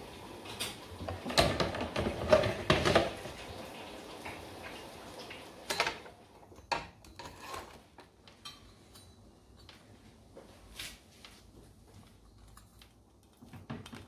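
Household objects being handled: a run of loud clattering knocks in the first few seconds, then scattered light clicks and taps.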